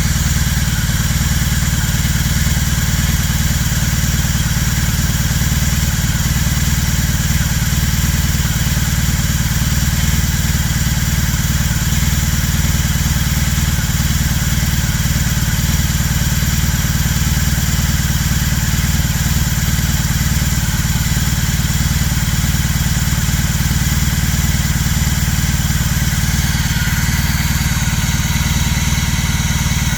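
BMW R18 Classic's big air/oil-cooled boxer twin idling steadily while it warms up after a cold start.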